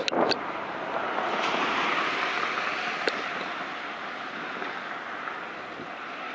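A vehicle passing close by: a rushing road noise that swells over the first two seconds and then slowly fades, with a few sharp clicks at the very start.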